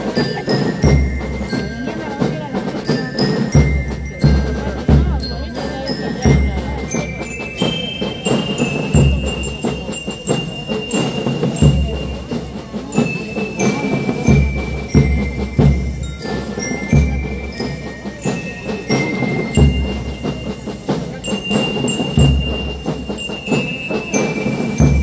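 Marching band (banda de guerra) playing: bell lyres ring out a stepwise melody of high held notes over heavy bass drum beats and rattling snare drums.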